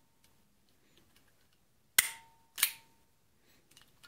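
Taso BE-90 paintball marker's double-action trigger mechanism dry-fired with no CO2: a trigger pull ends in two sharp metallic clicks about two-thirds of a second apart, the first a snap with a brief ring as the hammer is released. A few faint ticks of the parts moving follow near the end.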